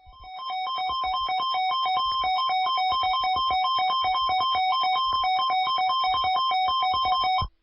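Electronic alert tone sequence: loud synthesized beeps hopping rapidly between two main pitches, about six notes a second, with a click at each change, lasting about seven seconds and cutting off abruptly near the end.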